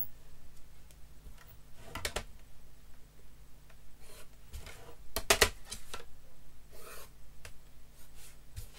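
Technical-drawing handling noises: a pencil scratching along paper and a plastic set square sliding and tapping on the drawing board and its straight edge. Scattered short clicks and rubs, the loudest a quick cluster of sharp clicks about five seconds in.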